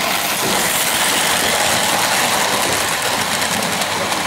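Steady mechanical running noise of model trains working on a layout.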